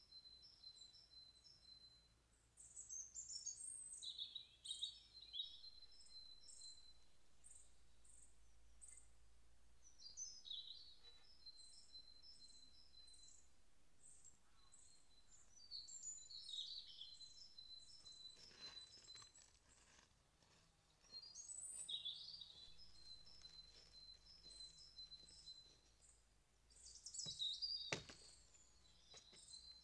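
Small birds singing in woodland: bursts of high chirping phrases every few seconds over a thin, steady high note. Near the end, one sharp hatchet blow into a dead branch.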